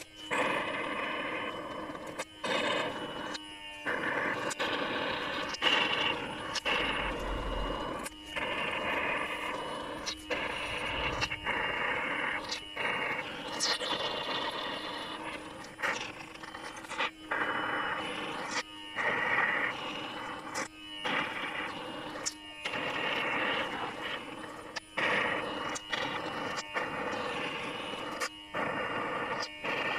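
Honey and air being sucked through a thin suction tube from pierced stingless-bee honey pots: a continuous crackly slurping that keeps cutting out for a moment every second or two, over a faint steady hum.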